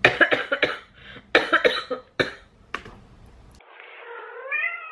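A woman coughing into her fist: a quick string of coughs, a second string about a second later, then two single coughs.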